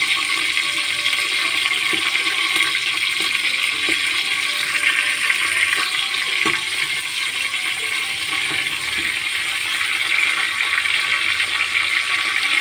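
Whole spices (cumin seeds, bay leaves, cinnamon, cardamom, cloves, black peppercorns) sizzling and crackling steadily in hot oil in a pressure cooker, the tempering stage where the spices splutter and release their aroma. A spoon stirs them and knocks against the pot about six seconds in.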